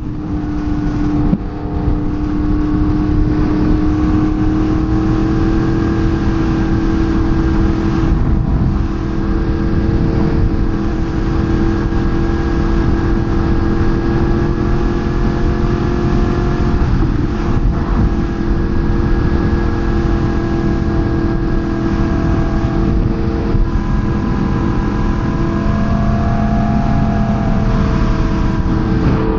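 Sportbike engine running at a steady high cruising speed under a rush of wind noise, its pitch creeping slowly upward and then changing briefly near the end.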